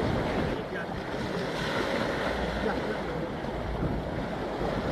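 Sea surf washing in steadily with wind gusting on the microphone.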